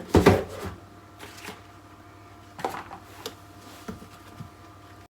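A MacBook Pro box and its packaging being handled during unboxing. There is a loud rustling scrape about a quarter second in, then a few short knocks and rustles, over a steady low hum. The sound cuts off abruptly near the end.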